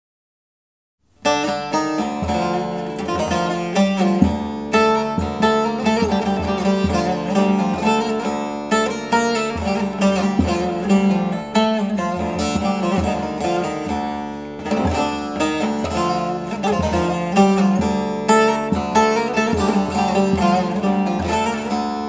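Instrumental music led by a plucked string instrument, starting suddenly about a second in after silence: quick plucked notes over a steady low note.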